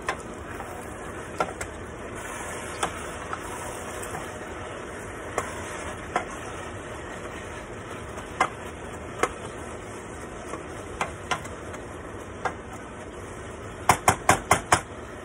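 Wooden spoon stirring ground meat and vegetables in a metal pot over a steady sizzle, with scattered clicks and scrapes of the spoon against the pot. Near the end, a quick run of about six knocks as the spoon is tapped on the pot.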